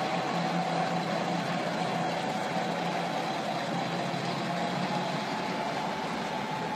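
Diesel engine of a Fiat 180 NT tractor unit running steadily at low revs as the articulated truck creeps and turns at walking pace, pitch edging up slightly near the end.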